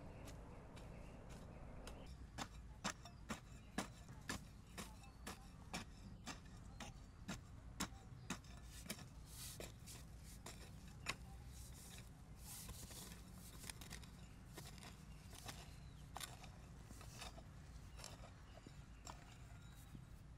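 A series of light, irregular knocks or clicks, about one or two a second, starting about two seconds in over a faint steady background.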